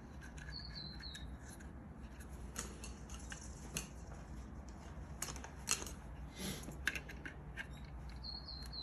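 Light clicks and scrapes of small plastic and metal door-handle parts being handled as a retaining clip is fitted onto an Acura Integra outside door handle assembly, with a faint short high squeak near the start and again near the end.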